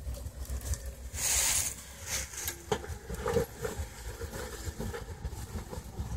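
Rock crawler's engine running low and steady, with a short burst of hiss about a second in and a few knocks.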